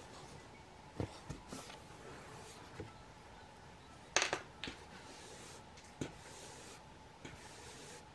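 Hands handling a cardboard book cover and embroidery thread while sewing a sketchbook's binding: a few short scratchy rustles and soft taps on the table, the loudest rustle about four seconds in.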